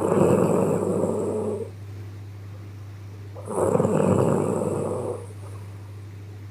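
A woman snoring in her sleep: two rattly snoring breaths, each nearly two seconds long and about three and a half seconds apart, over a steady low hum.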